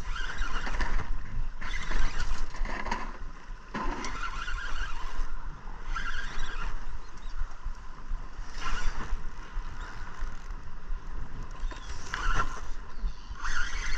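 Spinning reel being cranked against a hooked char, with a steady rumble of wind on the microphone and short bursts of noise every second or two.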